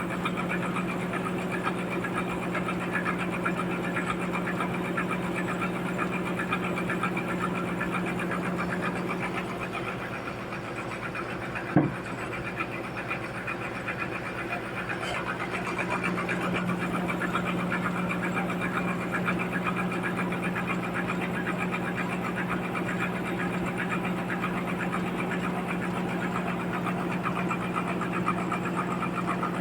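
Sawmill engine running steadily at a constant pitch. Its note weakens for several seconds about ten seconds in, and one sharp knock comes near the middle.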